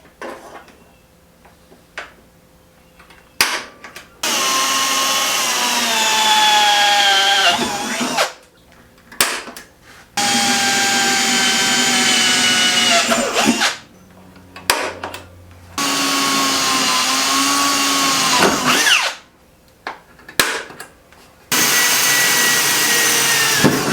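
Power drill boring four small alignment holes through the sheet-metal cowl of a 1966 Mustang, in four separate runs of a few seconds each. The pitch sags near the end of each run, with small clicks and handling knocks in the pauses between holes.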